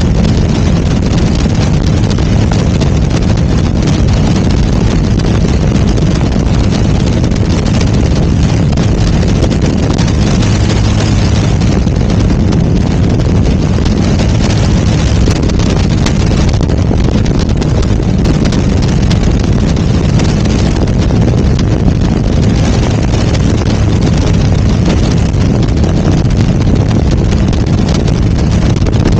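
AutoGyro MTOsport gyroplane in cruise flight, heard from its open cockpit: the steady drone of the engine and pusher propeller with wind rushing over the microphone.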